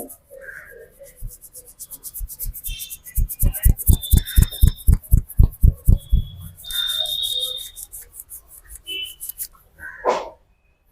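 A barber's hands drumming rapidly on a client in a percussive head massage: a fast, even run of soft thumps, about five or six a second, lasting a few seconds in the middle, with hands rubbing on skin and hair around it.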